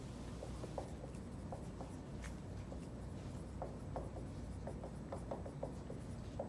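Dry-erase marker writing on a whiteboard: short, faint squeaks and taps of the marker tip as words are written out.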